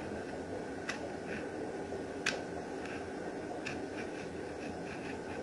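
Faint clicks and light scratching of a utility blade and tuck tool working vinyl wrap film up under a molding, with two sharper clicks about one and two seconds in, over a steady low hiss.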